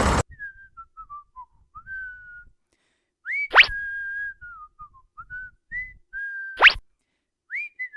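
A whistled tune: a single pure note stepping up and down in short phrases, with two quick, loud upward swoops, one midway and one near the end.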